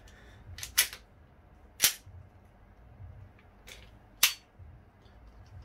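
Double Bell 2011 Hi-Capa green-gas blowback gel blaster pistol firing a few sharp shots a second or two apart, three of them loud with fainter clicks between. The magazine is running out of gas: the pistol is dying, but still cycling.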